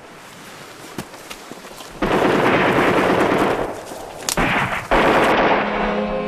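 Automatic gunfire: a couple of single sharp cracks, then from about two seconds in long, dense bursts of rapid fire. Sad string music comes in near the end.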